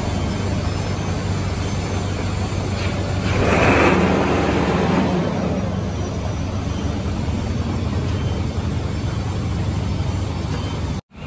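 An engine running steadily with a low drone, and a louder rushing swell about three to five seconds in.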